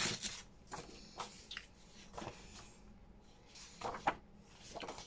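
Loose old book pages rustling as they are pulled apart and handled, a scatter of short, irregular rustles.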